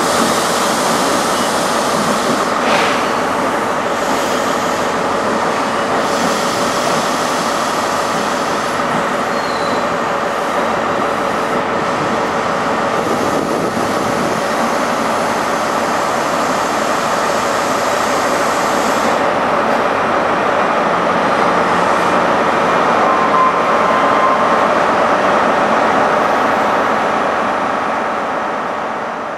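Diesel power car of a Great Western Railway HST (InterCity 125) running steadily beside the platform, a loud, even engine and train noise that swells a little about three-quarters through and fades at the very end.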